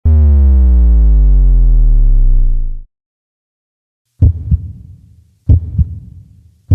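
A low synthesized tone sliding down in pitch for about three seconds, then cutting off. After a short pause come heavy low heartbeat-style thumps in double beats, twice, with a third beginning at the end.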